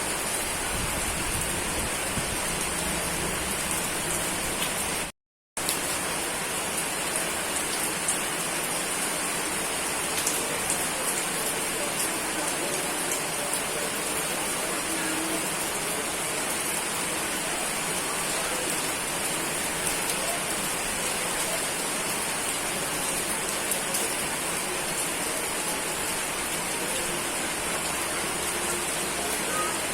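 Steady rain falling in a rainstorm, a dense even hiss with scattered sharp drop ticks. The sound cuts out completely for a fraction of a second about five seconds in.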